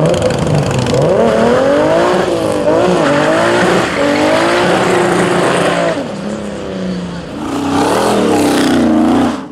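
V8 muscle car doing a street burnout: the engine revs up and down again and again over the squeal and hiss of spinning tyres.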